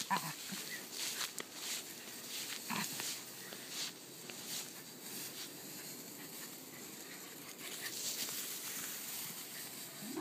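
Shetland sheepdogs running through tall meadow grass: repeated swishing rustles of grass, with a few short dog vocalizations, one near the start and one about three seconds in.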